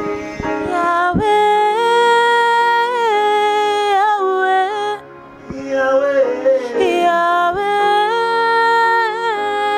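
A woman singing a slow gospel worship melody in long held notes that waver at the phrase ends, over Yamaha electronic keyboard accompaniment. The singing comes in two phrases, with a short break about five seconds in.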